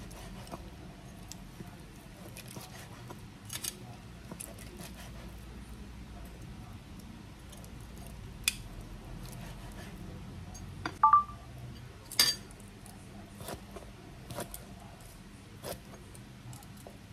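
Steel meat cleaver chopping through air-fried roast pork belly onto a plastic cutting board: scattered sharp chops and knocks a second or more apart, the loudest two close together about two-thirds of the way in, one with a brief metallic ping.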